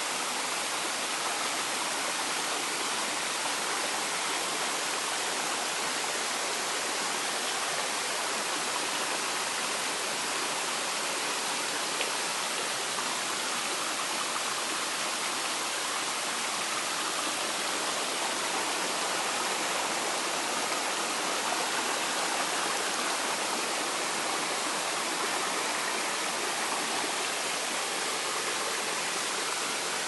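Mountain stream flowing over rock slabs and boulders, pouring through small cascades: a steady, even rush of water that does not change.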